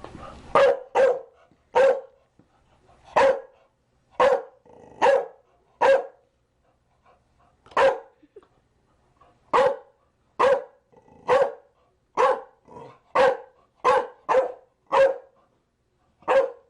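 Chow Chow barking: a long run of single, evenly pitched barks, about one a second, with a few short pauses between them.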